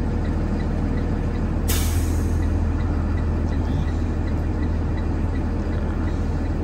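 School bus diesel engine idling steadily, with a light regular ticking about three times a second. A sudden short hiss of released air from the bus's air brake system comes a little under two seconds in.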